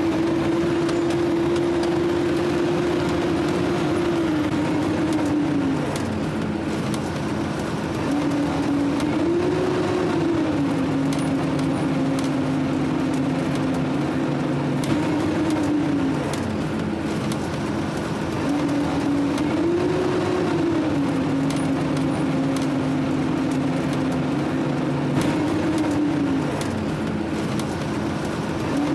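Fire truck's engine and drivetrain droning steadily inside the cab while driving, with faint rattles. The drone's pitch drops about five seconds in, then rises and falls back several times.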